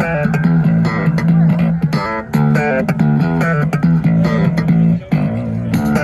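Loud rock music led by bass guitar and guitar, with two brief breaks, at about two seconds and five seconds in.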